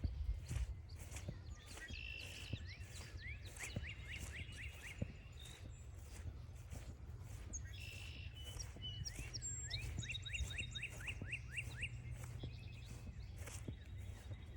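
A songbird singing two phrases of quick, rising whistled notes, each opened by a short buzzy trill, about 2 s and 10 s in. Under it, steady footsteps on the trail.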